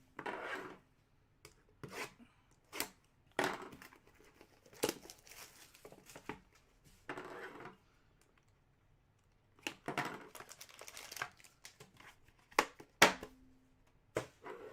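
Trading-card pack wrappers crinkling and tearing as packs are opened and the cards inside handled. It comes as a series of short, sharp crinkles and snaps, with longer rustles among them.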